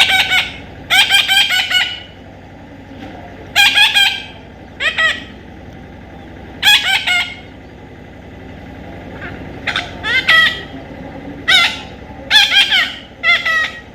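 A parrot giving repeated harsh screeching calls: short bursts of a few rapid pulses each, about nine times, some in quick pairs.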